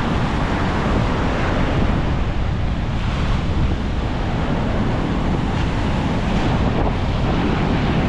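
Rough ocean surf breaking and washing up the beach, with strong wind from a distant hurricane buffeting the microphone in a steady low rumble.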